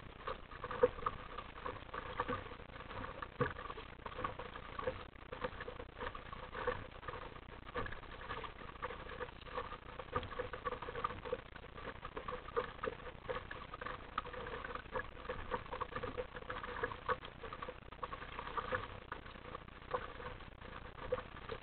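Small waves slapping and splashing against the plastic hull of an RTM Mambo sit-on-top kayak as it moves through the sea: a quick, irregular run of small knocks and splashes.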